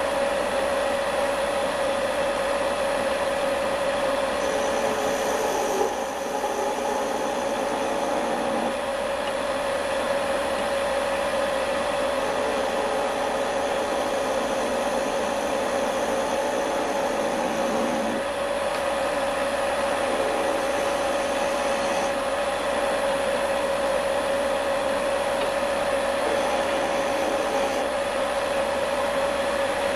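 Electric wood lathe running, its motor giving a steady, even whine.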